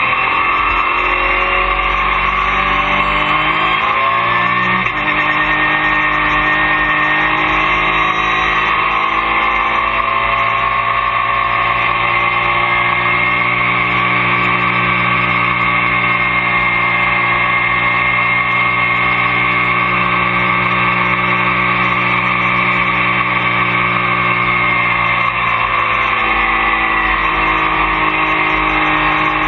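Porsche race car engine heard from inside the cockpit at racing speed, pulling hard: revs climb and an upshift comes about five seconds in, then a long steady run at high revs with the pitch slowly rising, and the revs fall away near the end as the driver lifts, over steady road and wind noise.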